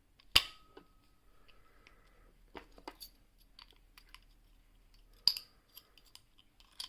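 Metallic clicks and taps from handling a six-lever British oval padlock and its homemade picking tools. There is a sharp click about half a second in with a brief ringing tone after it, scattered lighter ticks, and another sharp click a little after five seconds in.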